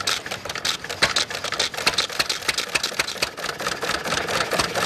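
Antique hit-and-miss gas engine catching right at the start and running with a fast, even mechanical clatter of sharp clicks.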